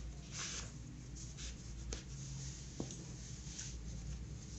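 Soft scratching and rustling of yarn and a sewing needle being drawn through a crocheted amigurumi toy and its stuffing, with a couple of light clicks.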